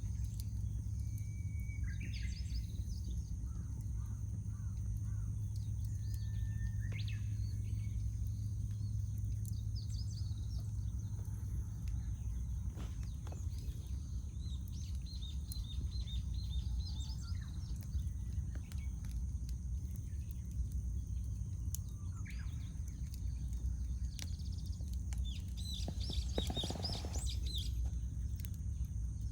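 Small birds chirping and calling at intervals over a burning wood campfire, which gives a steady low rumble with an occasional sharp crackle. A louder, harsher bird call comes about 26 seconds in.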